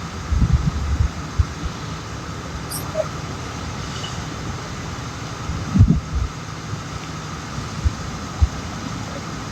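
Steady background traffic noise with irregular low thumps of wind buffeting the microphone, strongest about half a second in and again near six seconds.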